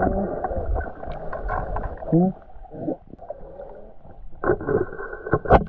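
Muffled voices over a steady, muffled noise, with a brief vocal sound about two seconds in and a sharp knock near the end.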